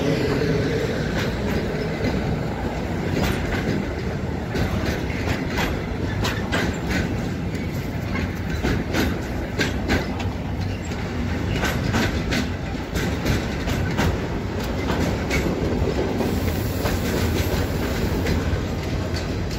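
Freight train of container flat wagons rolling past: a steady rumble of wheels on rail, with irregular clicks and knocks as the wheels run over rail joints.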